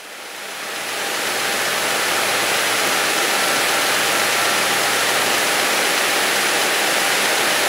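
Cabin noise of a small plane in flight: the engine and rushing airflow make a steady loud drone. It swells up over the first second or so, then holds even.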